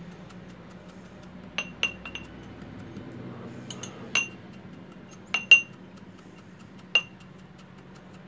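Small glass tumblers clinking as a pestle tamps crushed biscuit into them: about eight sharp, irregularly spaced clinks with a brief ring, the loudest about five and a half seconds in.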